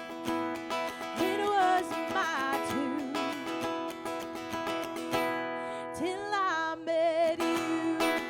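Acoustic guitar strumming with a singer holding long notes with vibrato.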